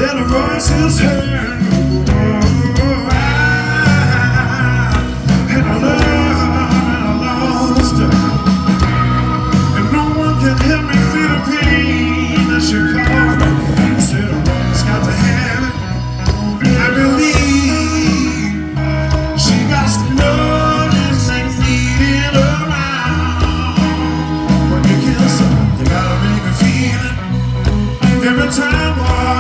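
Live blues-rock band playing: drums, bass and electric guitar, with a man singing lead into a handheld microphone.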